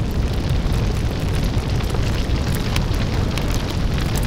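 Fire roaring in a steady low rumble, with scattered sharp crackles.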